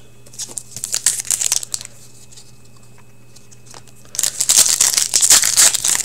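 A hockey trading-card pack wrapper being torn open and crinkled by hand. A short stretch of crinkling starts about half a second in and lasts about a second, then there is a pause, then louder, denser crinkling and tearing begins about four seconds in.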